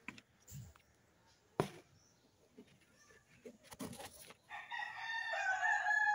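A few soft clicks and one sharp tap, then, about three-quarters of the way in, a rooster starts crowing: one long call of several stacked tones that is the loudest sound here.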